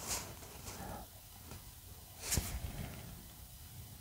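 Faint handling noises from a plastic Blu-ray case held and turned in the hands: a few soft brushes and rustles, the clearest about two seconds in.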